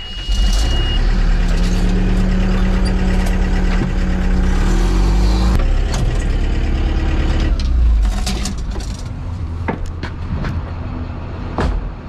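Aircraft tow tractor's engine starting with a brief high beep, then running loudly with a steady drone whose pitch rises and falls around the middle. It drops to a lower level later on, with a few sharp knocks near the end.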